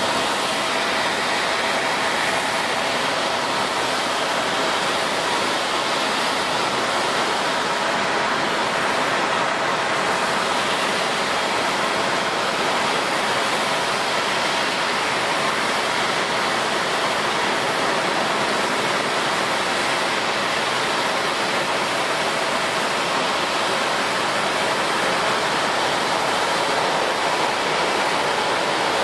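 Steady rushing noise of airliner jet engines, even throughout, with faint steady tones under the rush.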